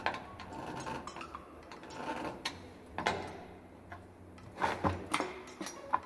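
Wrench turning a bolt on a grounding lug fixed to a galvanized steel cable tray: irregular metal clicks and knocks, with a cluster of sharper ones near the end.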